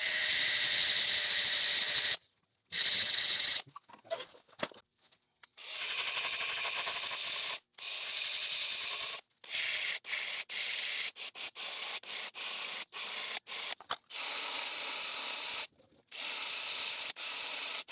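Abrasive sanding of an oversized suspension bushing to make it fit, a steady rasping hiss in repeated stretches that cut off abruptly, shorter and choppier in the second half.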